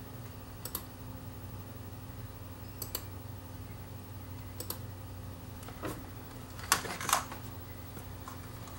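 Soft plastic clicks of remote-control buttons being pressed to skip to the next video, a quick pair about every two seconds, then a few louder clacks and handling noises around six to seven seconds in. A steady low hum runs underneath.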